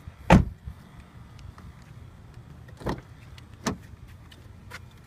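Knocks from the rear door of a car being handled. One heavy thump comes about a third of a second in, then two lighter knocks near the three-second mark and a faint click, over a steady low hum.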